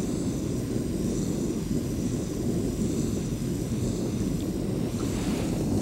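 Small portable stove's flame running under a glass flask of water, a steady low rumble while the water heats to the point of making steam.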